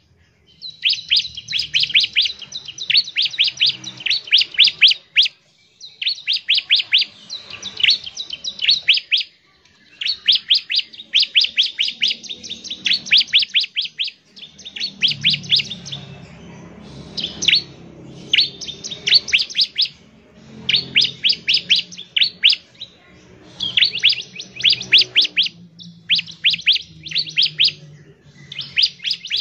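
Bar-winged prinia (ciblek) singing its rapid 'nembak ngebren' chatter. It comes in bursts of fast, high, sharply falling notes, repeated in phrases one to four seconds long with short pauses between.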